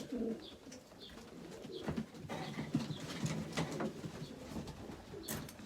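Racing pigeons cooing softly, with a few sharp clicks and rustles from birds being handled into a race basket.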